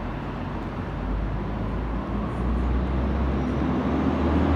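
City street traffic noise: a steady wash of road sound with a low rumble that grows gradually louder, like a vehicle drawing near.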